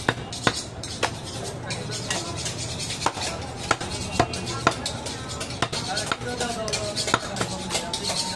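A butcher's knife chopping and cutting goat meat on a wooden chopping block: sharp knocks of the blade against the wood, irregular, about one every half second to a second.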